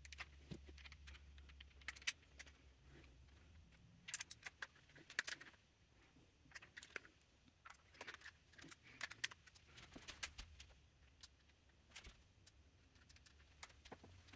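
Faint, scattered clicks and small rattles of plastic and metal parts as the bolt release lever is worked into its seat inside an airsoft SMG's polymer receiver.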